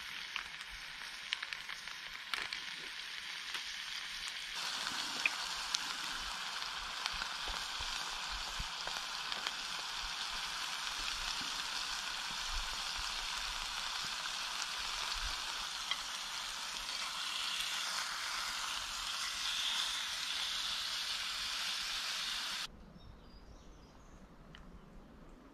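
Burger patties sizzling in a cast-iron skillet over a wood fire, with a few sharp clicks in the first couple of seconds. The sizzle steps up louder about four seconds in and cuts off abruptly near the end, leaving only a faint background.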